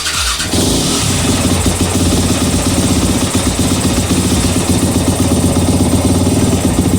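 2022 Yamaha YZ250F's 250 cc single-cylinder four-stroke engine firing up about half a second in and then running steadily, on its first start after a rebuild.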